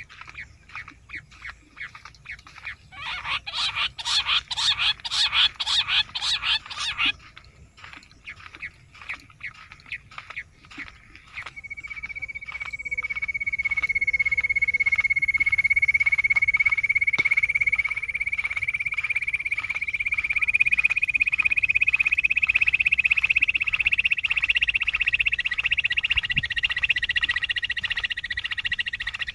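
Rapidly pulsed animal calls: a loud rattling burst from about three to seven seconds in, then from about twelve seconds a continuous pulsing buzz that slowly rises in pitch.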